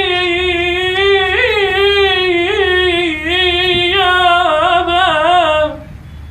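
A high solo voice, unaccompanied, sings one long held note in Iraqi lament style, bending and trilling it in ornamented turns before it stops near the end. A faint low steady hum lies underneath.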